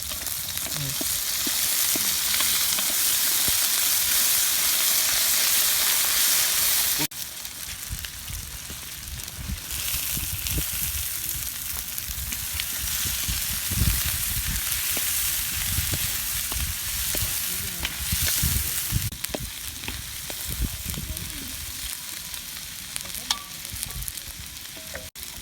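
Food sizzling in hot oil in a large cooking pot and being stirred. The sizzle is loudest at first, breaks off suddenly about seven seconds in, then goes on a little quieter with low knocks of the stirring.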